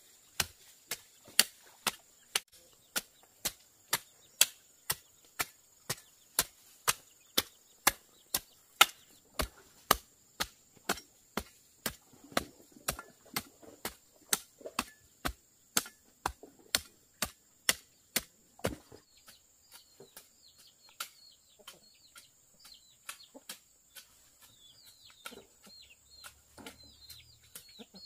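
Steady chopping with a blade, sharp even strokes about two a second, which stop about two-thirds of the way through. After that, chickens cheep and cluck faintly, over a steady high insect drone.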